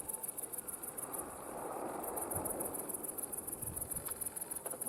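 Insects, likely crickets, chirping in a fast, steady high pulse of about eight chirps a second. A faint rushing sound swells briefly in the middle.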